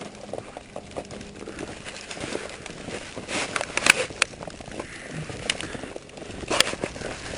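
Irregular crackling and clicking close to the microphone over a steady hiss, with a few sharper cracks near the middle and near the end.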